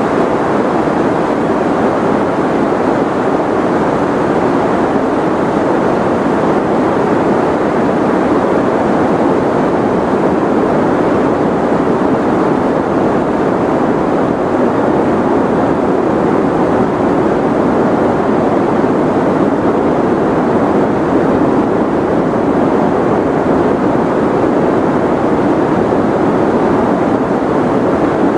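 Steady, unbroken noise with its weight in the low and middle range and little hiss at the top, more like a muffled rushing than bright white noise. It does not change at all.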